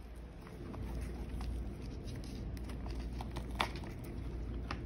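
Light clicks and taps of hardened resin discs being handled, with one popped out of a flexible silicone mold; the sharpest click comes about three and a half seconds in. Steady low background noise underneath.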